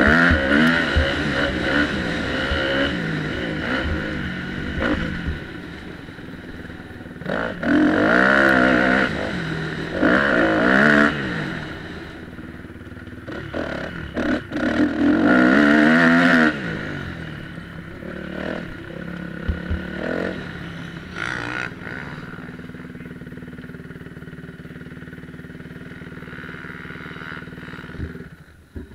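Dirt bike engine recorded onboard, revving hard in several bursts of throttle with rising and falling pitch, then running lower and steadier for the last ten seconds or so as the bike slows, dropping away near the end.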